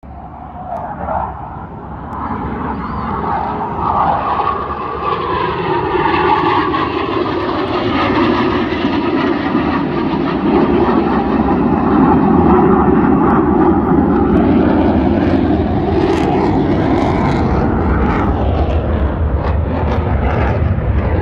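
Jet engine noise from military jet fighters flying over in formation. It builds over the first few seconds and then stays loud and steady.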